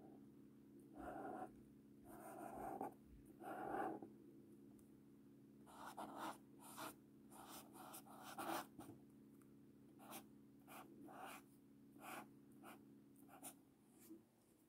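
Felt-tip marker scratching across paper as Chinese characters and pinyin are written by hand: a few longer strokes in the first four seconds, then a run of short, quick strokes. Faint.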